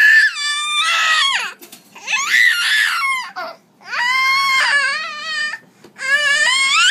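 Baby shrieking in long, very high-pitched squeals that waver in pitch, about four in a row with short breaks between them.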